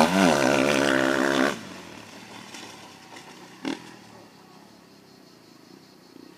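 Motocross dirt bike engine revving close by, its pitch rising and falling, then dropping away abruptly about a second and a half in to a faint, distant engine sound. A single short knock comes a little past the middle.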